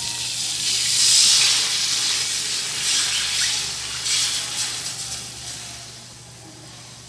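Evaporated milk poured from a can into hot melted butter in a wok, sizzling and hissing as it hits the hot fat. Loudest about a second in, then dying down toward the end.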